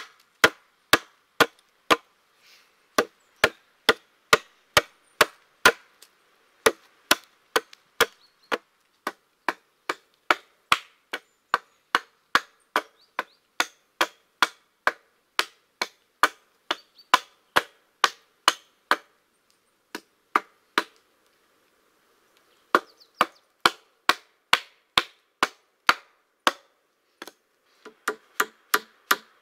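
Hatchet chopping into pine logs: a steady run of sharp blade strikes on wood, about two a second, with a brief pause around two-thirds through.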